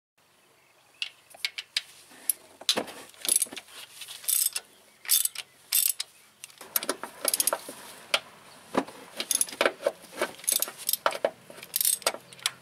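Ratchet wrench and metal hand tools clicking and clinking on engine parts, in irregular sharp clicks that come thicker in the second half.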